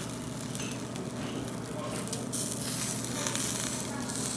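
Mala-seasoned lamb skewers sizzling steadily over a charcoal grill.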